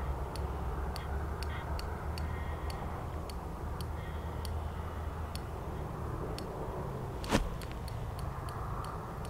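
Fishing reel ticking steadily, about three clicks a second, while a hooked fish is played in weed, over a low steady rumble. One louder knock about seven seconds in.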